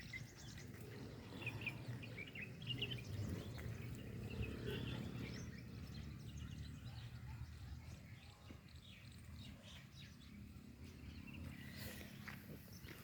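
Faint outdoor ambience: a steady low rumble with scattered short bird chirps, several in the first few seconds and a few more near the end.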